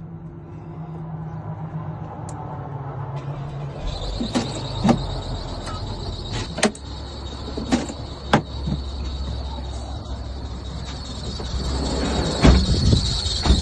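Small 12-volt portable air compressor (tire inflator) switching on about four seconds in and running with a steady buzzing drone. Several sharp clicks and knocks sound over it.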